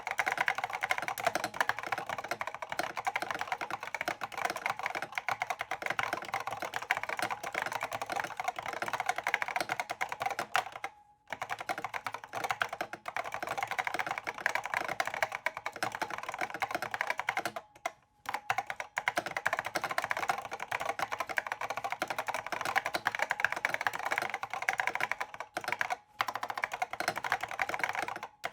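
IBM Pingmaster keyboard with stock SKCC Green Alps switches being typed on fast and without let-up, a dense run of key clacks broken by brief pauses about 11, 18 and 26 seconds in.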